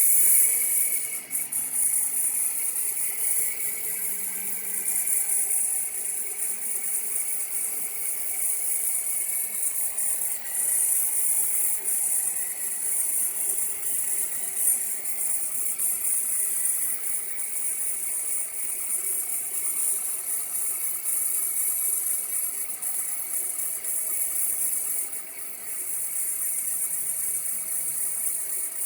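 Car engine running with a squeaky noise from the V-belt (accessory drive belt) area, a steady high-pitched squeak and hiss over the engine.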